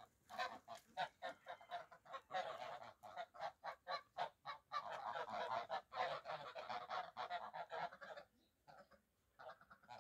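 A flock of domestic geese honking as they walk together, many short calls in quick, overlapping succession, with a brief lull about eight seconds in.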